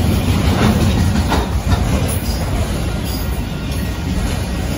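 Canadian Pacific autorack freight cars rolling past, a steady low rumble of steel wheels on rail with a few clacks of wheels over rail joints.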